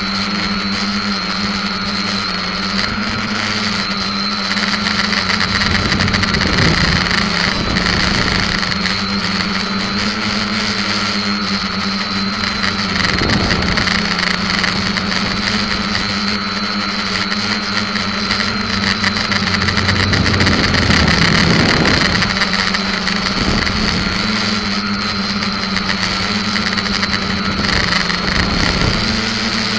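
SK450KK2 quadcopter's electric motors and propellers whining steadily in flight, recorded from a keychain camera fixed under the frame. The sound swells louder and rougher a few times.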